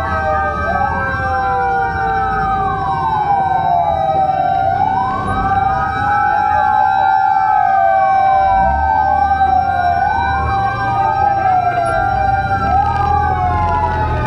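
Several fire truck sirens wailing at once, their rising and falling sweeps overlapping out of step over a steady held tone, with a low rumble underneath.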